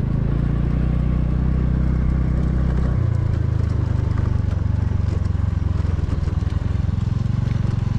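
Motor scooter's small engine running at low speed on a rough dirt track, its note changing about three seconds in.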